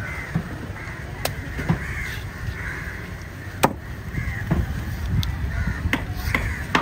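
Crows cawing several times over a steady low rumble, with a few sharp knocks in between.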